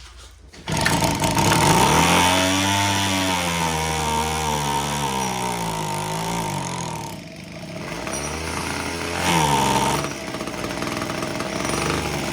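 Homelite HT17 hedge trimmer's small two-stroke engine catching about a second in and running, its revs rising and falling, sagging about seven seconds in and picking up again. The owner takes the uneven running as a sign that the carburettor needs adjustment.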